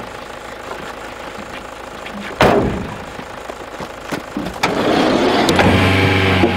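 A vehicle door slams shut about two and a half seconds in, followed by a few lighter knocks. Near the end an engine starts and begins to rev up.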